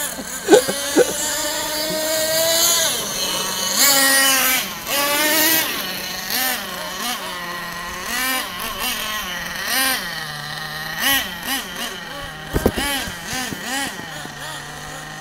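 Small nitro engines of radio-controlled short-course trucks racing round a dirt track, revving up and easing off in a high buzz that rises and falls every half second or so as the cars accelerate and slow for the corners.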